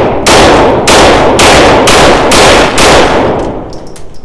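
Taurus TX22 Competition .22 LR pistol firing Winchester Super X rounds in quick succession: six shots about half a second apart, each trailing a long echo. The firing stops after the sixth shot, where the pistol has a failure to feed.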